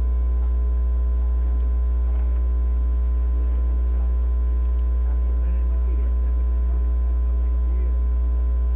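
Loud, steady electrical mains hum with a thin high tone above it, at an even level throughout, with faint voices of people talking underneath.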